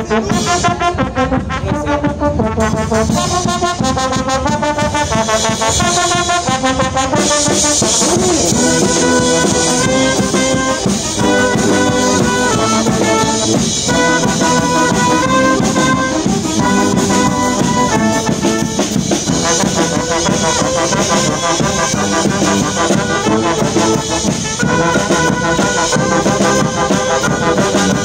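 Brass band music, lively, with trumpets, trombones and saxophones over drums. The tune changes abruptly a few times.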